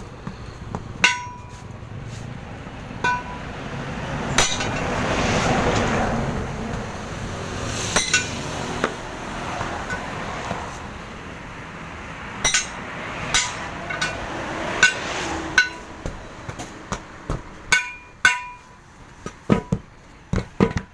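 Irregular metal-on-metal strikes, each with a short ringing, from a hammer and tire tools hitting a steel truck wheel rim while a truck tire is being mounted on it.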